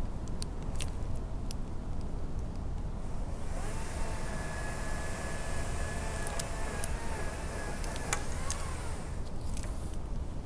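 Makita 40V cordless chainsaw running for about five seconds, starting a few seconds in, its motor giving a steady whine over the hiss of the chain, with scattered clicks. A steady low rumble runs underneath throughout.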